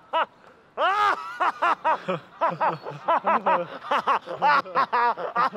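A man laughing heartily: one long rising-and-falling 'ha' about a second in, then a fast run of short 'ha-ha' bursts, several a second.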